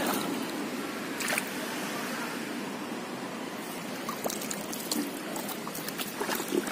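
Water sloshing and trickling as a hand scoop net is swept through shallow water and lifted out, water draining through the mesh, with a few brief splashes.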